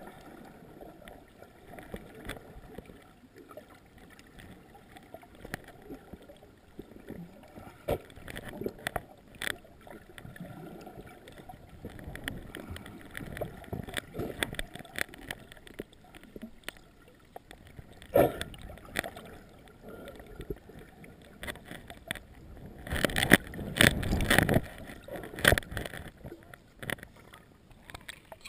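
Water heard from under the surface: a muffled, low sloshing and bubbling with scattered light knocks, and louder splashing and bubbling in the last few seconds as the camera comes up through the surface.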